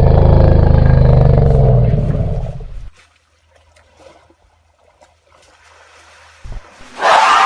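Elephant giving one long, low roar that fades out about three seconds in. Music starts near the end.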